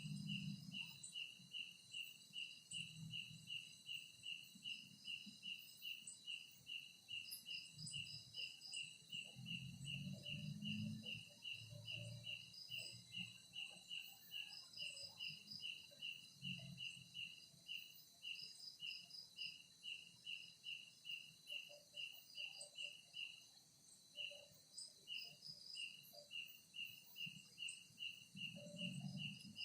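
Night-time insect chorus: a cricket chirping steadily about three times a second over a continuous high insect trill, briefly pausing about three quarters of the way through. Faint low rumbles come and go underneath.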